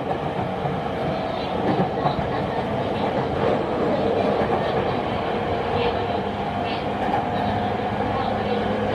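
Rinkai Line 70-000 series electric train with renewed traction equipment running on the line, heard from inside the car: a steady rumble of wheels on rail with light clacking over rail joints, under a steady motor whine.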